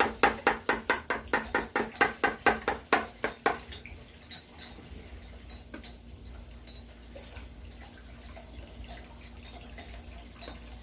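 Egg mixture being beaten in a bowl: quick, even strokes with a wet slap, about four a second, that stop about three and a half seconds in. A faint low steady hum remains.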